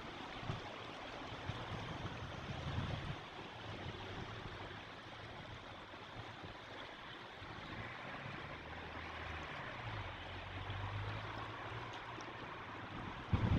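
A shallow, fast river running over a grassy bank: a steady rush of flowing water. Low rumbles come and go underneath it.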